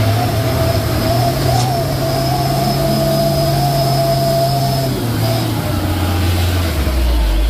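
Diesel engine of a heavy truck or bus labouring under load up a steep climb, running at steady revs with a whine over it. About five seconds in the whine stops, and near the end the engine note drops lower.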